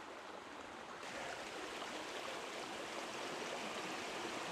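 Faint, steady rush of a woodland creek running over rocks and small cascades, a little louder and brighter after about a second.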